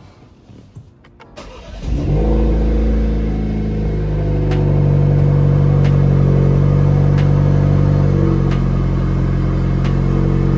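A 2021 Chevrolet Camaro's turbocharged 2.0 L four-cylinder is cranked and catches about two seconds in, then settles into a steady idle. This is its first start after a larger ZZP throttle body was fitted. A faint tick repeats about every second and a half over the idle.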